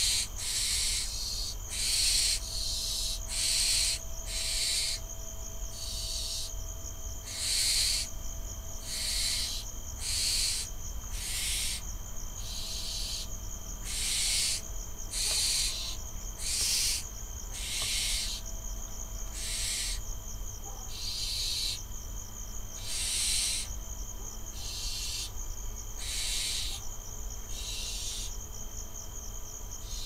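Barn owl fledglings giving their hissing, wheezy begging calls, one call about every second from several birds in turn, as they wait to be fed. A steady insect trill runs underneath.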